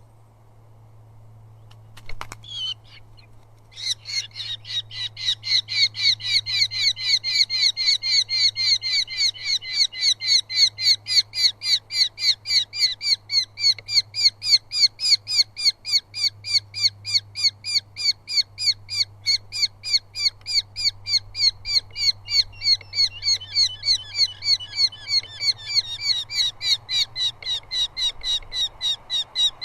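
Eurasian hobby calling: a long, fast series of sharp repeated notes, about three a second, after a brief call about two seconds in.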